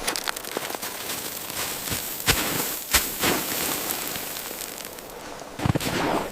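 Wood fire crackling, with a steady hiss and scattered sharp pops, two louder ones about two and three seconds in. Near the end a rustling, handling sound joins it.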